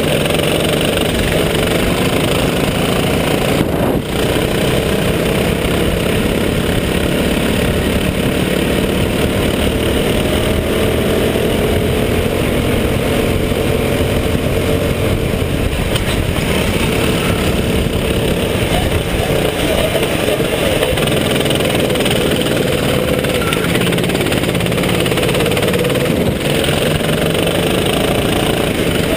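Rental kart's engine heard from on board, running hard on a lap, its pitch wavering up and down with the throttle through the corners. Under it is a steady rushing noise.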